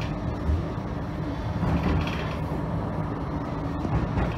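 Tram running along the street, heard from inside the passenger saloon: a steady low rumble of wheels on rail and running gear that swells briefly a few times.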